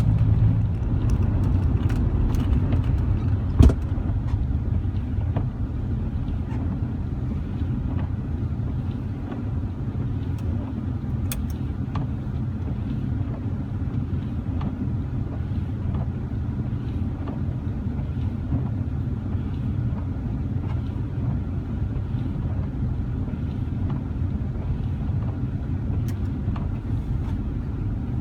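Car engine and tyre noise heard from inside the cabin: a steady low rumble, with scattered faint ticks and one sharp knock about four seconds in.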